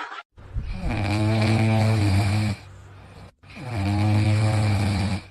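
An animal snoring: two long snores a moment apart, each low and steady in pitch.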